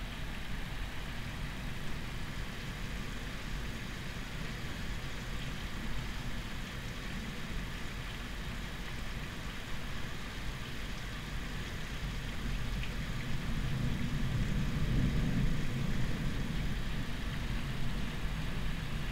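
Steady rain noise from a gentle night thunderstorm, with a low rumble of distant thunder swelling and fading in the last third.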